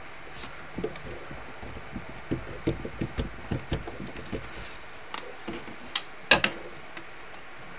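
Fingers pressing and patting cardstock pieces down onto a wooden tabletop: a run of soft taps, then two sharper clicks about six seconds in, the loudest of the lot.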